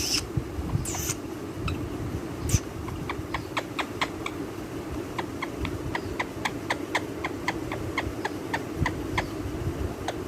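Parrot making two short shrill calls, then a long run of quick repeated clicking chirps, about three or four a second, over a steady low hum.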